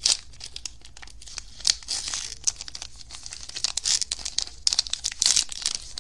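Glossy wrapper of a baseball-card box-topper pack crinkling and tearing in quick irregular crackles as it is peeled open by hand; the pack is hard to open.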